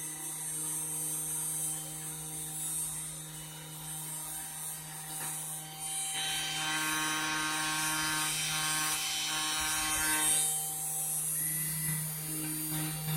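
Mini CNC mill running a test path with no bit fitted: the spindle motor spinning at 1,000 RPM with a steady hum while the axis motors move. A higher whine joins about halfway through, with short breaks, for a few seconds.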